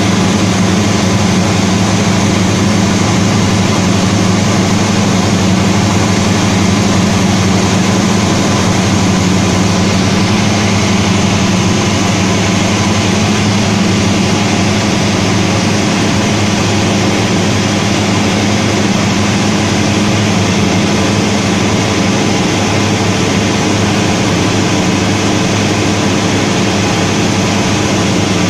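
A Cessna 172D's six-cylinder Continental O-300 engine and two-blade propeller run steadily in flight, heard from inside the cabin, with a steady hiss of air over the airframe.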